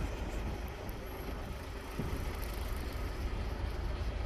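Street traffic: the steady hum of cars driving past, a little louder from about two seconds in.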